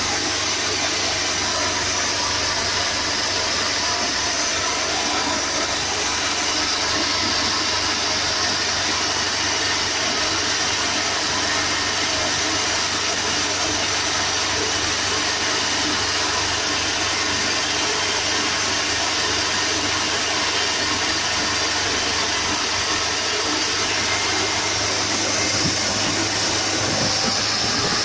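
Mitsubishi Colt T120 engine running steadily at idle, with a constant hissing noise over it.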